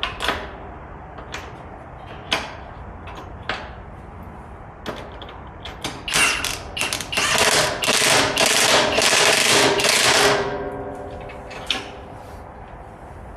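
A handheld power tool runs in a few short bursts and then steadily for about three seconds, starting about six seconds in. Scattered clicks and knocks of parts being handled come before it.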